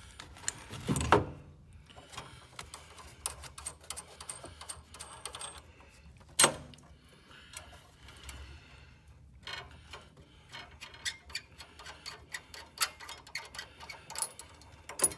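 Scattered light clicks and taps of hands and tools working the brass flare fittings of an HVAC thermostatic expansion valve loose, with a dull knock about a second in and a single sharp click near the middle.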